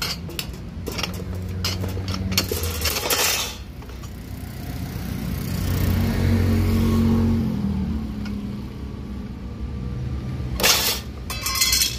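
Manual lever bench shear cutting galvanized sheet steel: sharp metallic clicks and shearing strokes, with two loud cuts near the end. In the middle a vehicle engine hum swells and fades.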